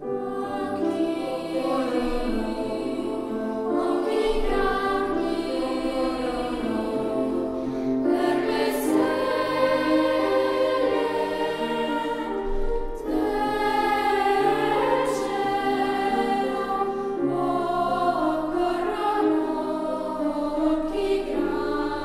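Children's choir singing a gentle lullaby in held, legato notes over a low sustained accompaniment.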